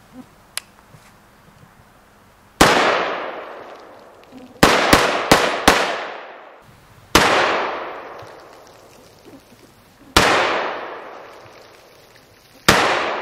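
AK-pattern rifle firing eight shots: a single shot, a quick string of four, then three single shots a few seconds apart, each trailing off in a long echo.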